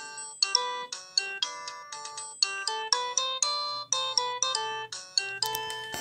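Alcatel polyphonic MIDI ringtone played through the small loudspeaker of a Sagem my730C flip phone: a quick, bright melody of chiming synthesized notes, about three a second.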